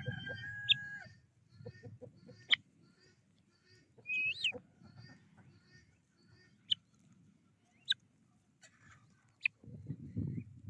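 A rooster's crow trailing off about a second in, followed by scattered short, sharp calls and clucks from the fowl, one of them a rising call about four seconds in. A low rumbling noise runs under the first second and comes back near the end.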